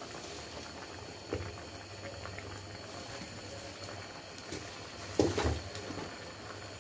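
Pot of masoor dal (red lentils) boiling, a steady low bubbling. A soft knock comes about a second and a half in, and just past five seconds there is a short cluster of louder knocks.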